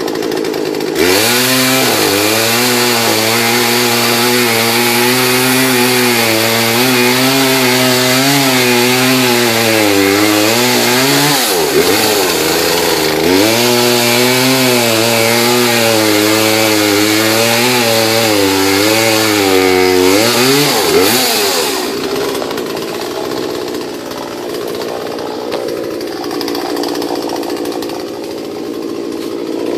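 Gasoline chainsaw revved up about a second in and cutting into a tree trunk under load, its engine pitch wavering as the chain bites. It drops off briefly near the middle, cuts again, then falls back to idle for the last several seconds.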